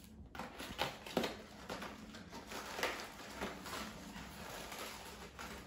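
Cardboard carton of frozen sliders being torn open and handled by hand: scattered rustles, rips and light taps at uneven intervals.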